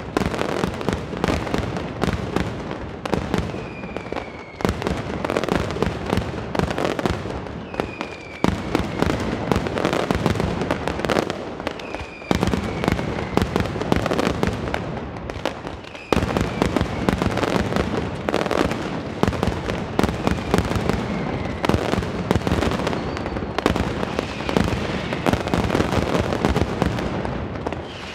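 Mascletà pyrotechnics: firecracker strings going off in a dense, unbroken crackle of sharp bangs, with aerial fireworks bursting overhead. Short falling whistles come every few seconds, and the loudness jumps suddenly several times.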